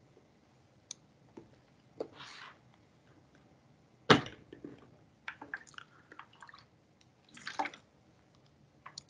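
A person drinking from a water bottle close to the microphone: quiet handling clicks, a sharp knock about four seconds in, a run of small clicks and short breathy sips.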